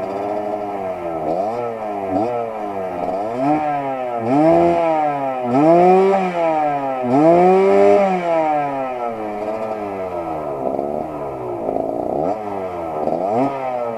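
Suzuki TS125's two-stroke single-cylinder engine being revved repeatedly, its pitch climbing and falling with each blip of the throttle. The highest and loudest revs come around the middle.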